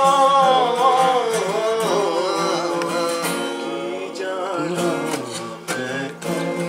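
A man singing with an acoustic guitar: a long held note that then bends and wavers, with the guitar strummed more plainly near the end.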